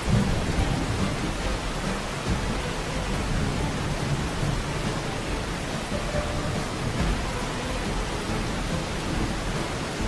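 Heavy rain falling on a car's windscreen and body, with low rumbling thunder, heard from inside the moving car. The sound is steady, with a slightly louder surge right at the start.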